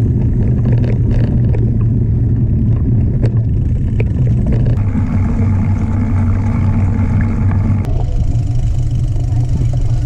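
Ride noise on a mountain-bike-mounted action camera: wind buffeting the microphone and tyres rolling over a dirt trail, a loud steady rumble with scattered clicks and rattles.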